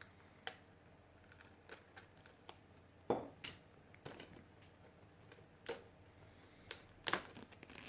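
Scattered light clicks and taps of a metal Blu-ray steelbook case being handled, with louder knocks about three seconds in and again about seven seconds in.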